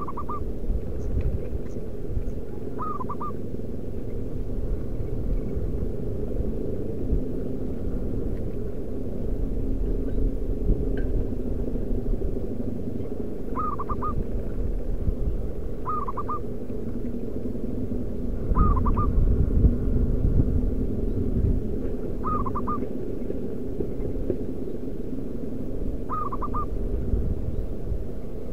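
Zebra dove calling: seven short bursts of quick staccato cooing notes, spaced a few seconds apart. Underneath runs a steady low rumble, louder for a couple of seconds about two-thirds of the way in.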